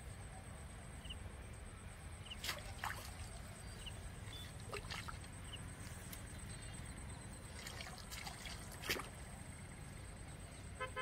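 Tilapia thrashing at the water surface, several short splashes a few seconds apart, over a steady low rumble and a faint steady high tone. A short horn toot sounds right at the end.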